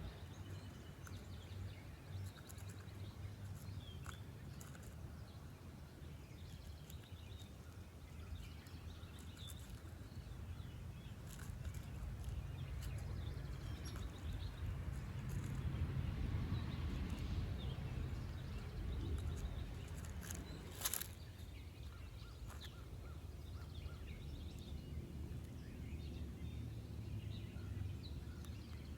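Outdoor forest ambience: a steady low rumble that swells for a few seconds midway and then fades, with faint scattered chirps and small clicks, and one sharper click about two-thirds of the way through.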